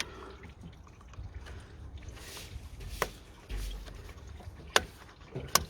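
Hands releasing the plastic hose clip at the bottom of a car's coolant reservoir: a few sharp clicks of plastic, two of them close together near the end.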